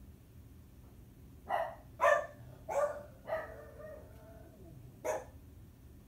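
Timneh African grey parrot imitating a dog's bark: five short barks, the fourth drawn out into a falling whine.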